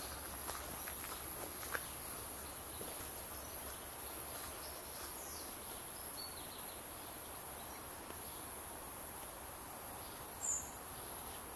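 Steady high-pitched trilling of insects in summer bush, with a couple of soft footsteps in the first two seconds and one short high bird chirp near the end.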